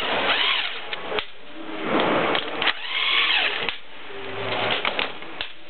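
Power drill with a socket extension unscrewing the bolts of a supercharger's bypass valve. It makes two runs, each spinning up and winding down, with a few sharp clicks between them.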